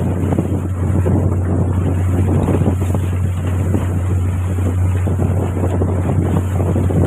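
A boat's engine runs at a steady low drone while under way, with heavy wind buffeting the microphone.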